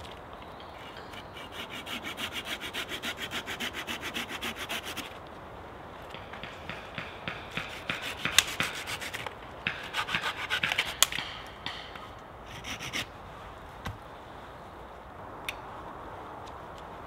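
Small hand saw cutting through a dead branch: a spell of fast, even strokes about five a second, a short pause, then a second, more uneven spell with a few louder strokes that stops well before the end. A single click follows a couple of seconds later.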